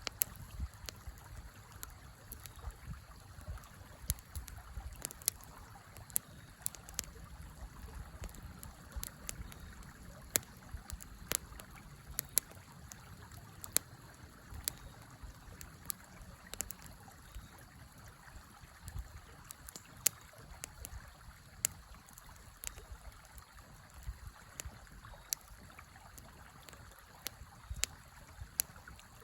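Wood fire crackling with frequent, irregular sharp pops over the steady rush of a flowing river.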